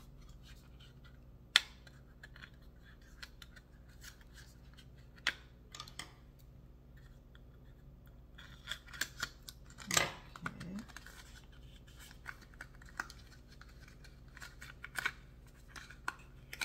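Small cardboard and paper cosmetics packaging being opened by hand: scattered sharp clicks, scrapes and rustles, with a sharp click about a second and a half in and a busier, louder cluster about ten seconds in.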